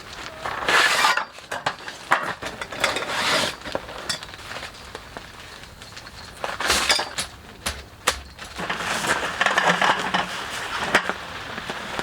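Camping gear being handled while a tent is pitched: hard objects clinking and knocking in irregular sharp clicks, with several louder rustling rushes.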